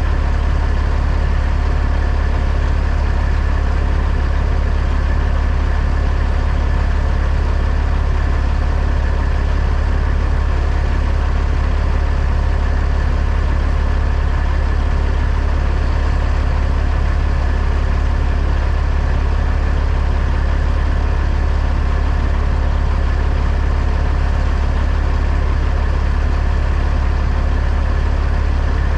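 Truck engine running steadily, a constant low drone with no change in speed.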